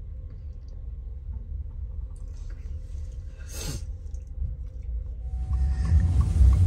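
Steady low rumble aboard a moving ferry, with one quick falling whoosh about halfway through. Near the end, steadier noise from a pickup truck's cab swells up.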